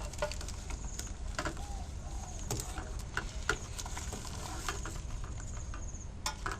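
Irregular light taps and small plops of pandan glutinous-rice dough balls being dropped into a pot of boiling water.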